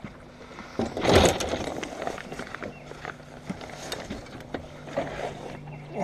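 A catfish being landed with a landing net: a short splash about a second in as the net comes out of the water, then scattered knocks and rattles as the net and the fish are handled on the metal john boat's floor, over a steady low hum.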